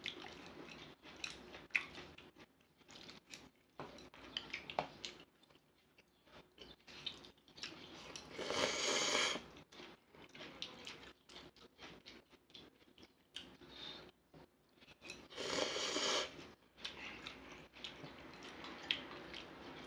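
Close-up eating sounds: chewing, with small clicks of chopsticks against bowls, and twice a louder rush of about a second, typical of slurping stew and noodles.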